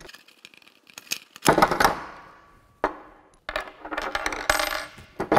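Metal suspension-kit parts and tools clinking and clattering on a tabletop as the kit is taken apart: a few light clicks, a loud clank with a brief ring about one and a half seconds in, then a quick run of rattling clinks near the end.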